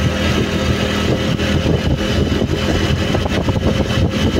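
A vehicle's engine running steadily while driving, with road noise mixed in.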